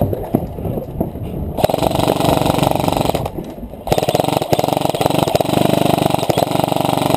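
Airsoft rifle firing on full auto in two long bursts, a fast even rattle, the second burst the longer; a few footsteps on gravel come before the first burst.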